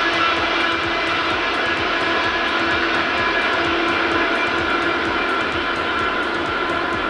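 Train hauled by a DR class 118 diesel-hydraulic locomotive running away into the distance: a steady rolling drone with a few steady whining tones over it.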